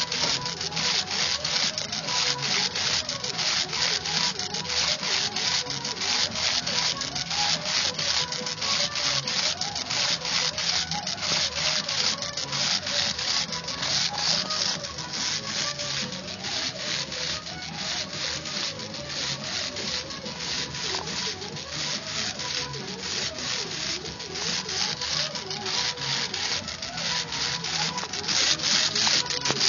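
Electromagnetic flip-dot display panels clattering as their discs flip over frame after frame of an animation. A fast, regular rattle that grows a little louder near the end.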